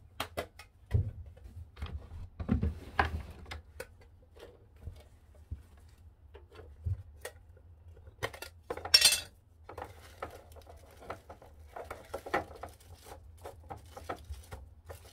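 Dishes and utensils being handled on a table: a scatter of light clinks and knocks, with one louder, longer scraping rustle about nine seconds in, over a faint steady low hum.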